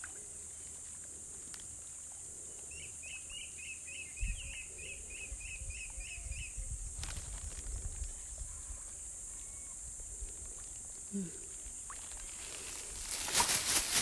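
Outdoor pond-side ambience: a steady high hiss throughout, with a quick run of about a dozen high chirps, about three a second, a few seconds in. A low rumble of wind or handling on the microphone comes briefly, and there is rustling near the end.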